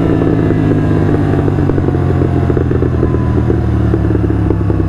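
Royal Enfield Continental GT 650's parallel-twin engine on the overrun after a first-gear rev, its note falling slowly while the Red Rooster aftermarket exhausts crackle and pop without pause. The crackles come from the Code6 ECU tune.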